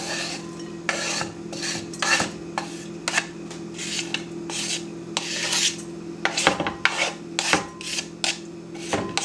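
Silicone-tipped kitchen tongs scraping and sweeping cut vegetables across a wooden cutting board into a glass bowl: a quick run of short scrapes, with a few duller knocks in the second half. A steady low hum runs underneath.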